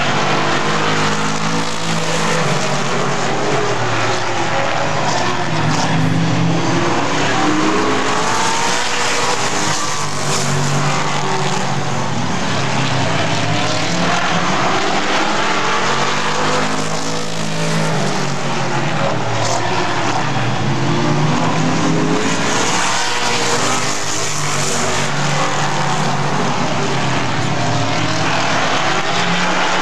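A pack of Super Late Model stock cars racing around an oval, their V8 engines overlapping and rising and falling in pitch again and again as the cars come past, at a loud, steady level.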